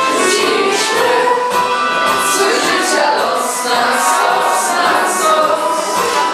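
A group of young voices singing a Polish patriotic song together.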